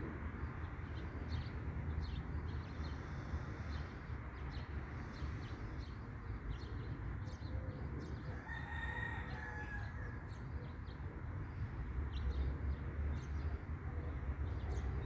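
One long pitched bird call, about eight seconds in, over a steady low background rumble and faint, short high chirps from small birds.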